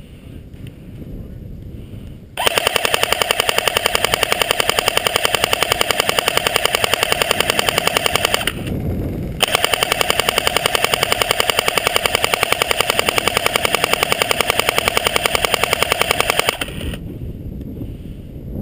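Airsoft gun firing on full auto close to the microphone: two long bursts of rapid, evenly spaced shots, about six and seven seconds long, with a pause of under a second between them.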